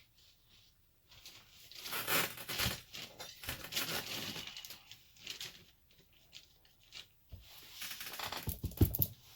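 Rustling and scraping as things are shifted around by hand while searching for a dropped lock pin, with a few sharp clicks and a louder knock near the end.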